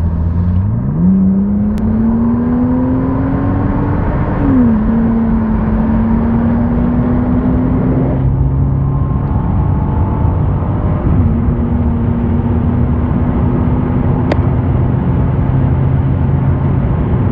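Turbocharged straight-six of a Ford Falcon Typhoon under full throttle, heard from inside the cabin as it accelerates through the gears. The engine note climbs, drops at an upshift about four seconds in, then climbs again, with a smaller drop at a second shift around eleven seconds.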